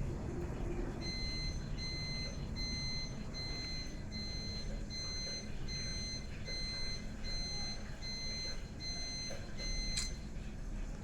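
An electronic alarm beeping steadily, about two short high beeps a second, over a low background rumble. Near the end a sharp click sounds and the beeping stops.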